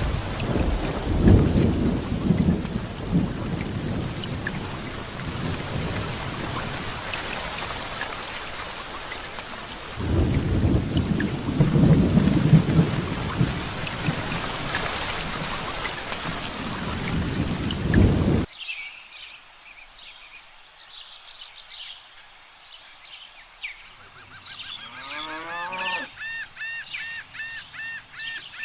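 Steady heavy rain with two long rolls of thunder, one near the start and one about halfway. About 18 seconds in it cuts off suddenly and gives way to birds calling with repeated short chirps.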